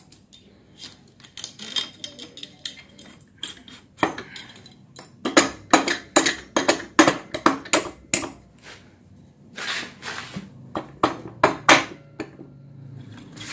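Irregular metallic clinks and rattles as an aluminium 58.5 mm cylinder block is slid by hand down the studs onto a Yamaha Mio scooter crankcase, with the cam chain clinking as it is fed up through the block. The clicks come in clusters, with a brief rustle about ten seconds in.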